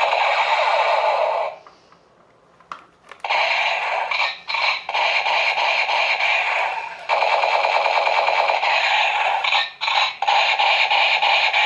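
Battery-powered toy gun's electronic machine-gun sound from its small speaker: a rapid, tinny rattle in long bursts. It stops for about a second early on, a couple of clicks follow, and then it sounds again.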